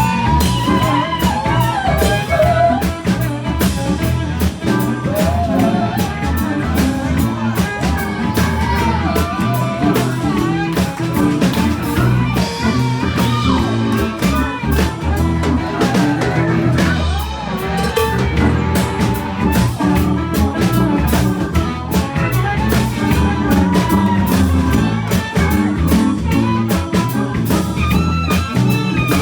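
A band playing blues-style music with a drum kit and guitar, with a steady beat.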